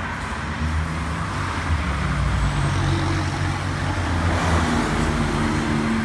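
A motor vehicle engine running steadily, with road and traffic noise.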